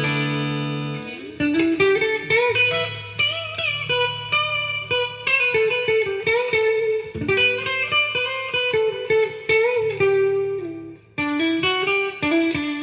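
Ibanez RG350EX electric guitar on its middle single-coil pickup, played clean through a Roland Blues Cube BC-60 amplifier with its built-in reverb. A chord rings out, then a run of plucked single notes and bent lead lines follows, with a short break near the end.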